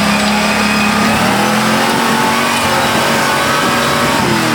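Off-road Jeep engine revving, its pitch holding fairly steady and then falling away near the end.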